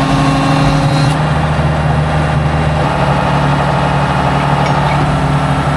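Farm tractor engine running steadily at idle, a constant low hum.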